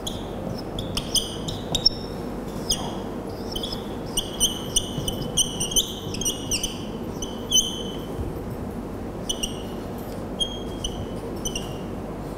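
Dry-erase marker squeaking on a whiteboard in many short, high-pitched strokes as words are written, over a steady low room hum.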